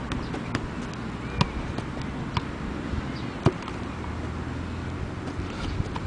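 A football struck by a player's boots while he juggles it: a handful of sharp, irregular thuds of foot on ball, the hardest about three and a half seconds in, over a steady low outdoor rumble.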